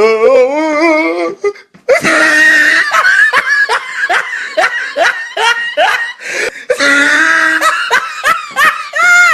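A person laughing loudly in a long run of repeated ha-ha pulses, about three a second, used as a comedy sound effect. It opens with a short wavering, quavering voice before the laughter starts.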